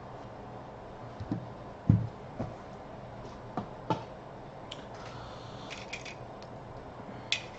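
Small handling sounds at a desk: a few soft knocks, the loudest a dull thump about two seconds in, then light clicks and a brief rustle in the second half.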